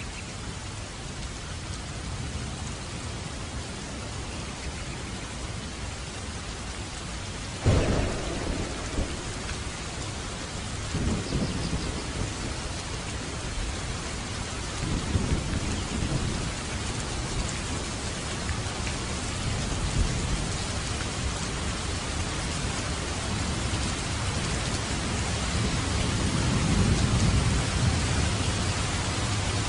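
Heavy rain pouring steadily, with thunder: a sudden crack about eight seconds in, then several low rumbles that swell and fade, the longest near the end.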